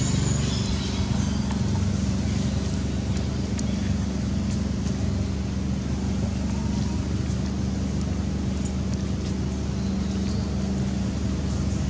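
An engine running steadily: a constant low hum that neither rises nor falls, with a few faint clicks over it.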